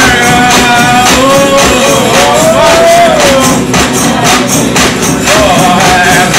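Live band music: acoustic guitar and hand percussion under a voice singing long, gliding held notes, with a steady beat of percussion strikes.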